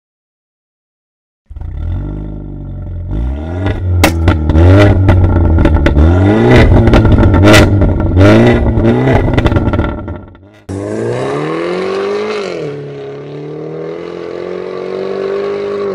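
Tuned BMW 320i (G20) turbocharged four-cylinder revved hard through an Armytrix valved exhaust with the valves open, starting about a second and a half in, with several sharp pops on the revs. Near the middle it gives way to the car pulling away under acceleration, the engine note rising, dipping briefly at a gear change, then rising again.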